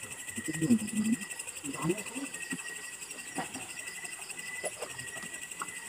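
Insects chirring steadily in a chorus of several high, finely pulsing tones, with faint low voices murmuring in the first two seconds and a few light clicks.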